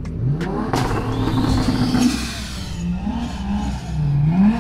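Mark IV Toyota Supra inline-six engine revving as the car pulls away slowly. The pitch climbs in the first second, holds, then rises again in two shorter blips near the end.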